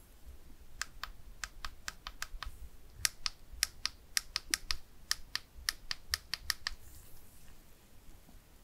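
Google Pixel 9's side buttons being pressed over and over, giving about twenty crisp clicks, some in quick pairs. The clicks stop near the end.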